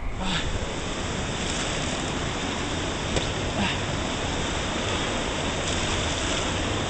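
Waterfall pouring steadily, a continuous rush of water.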